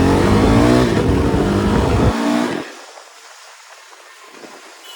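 Stock-exhaust KTM RC 390 single-cylinder engine accelerating, its note rising, until the engine sound drops away abruptly about two seconds in, leaving a much quieter background.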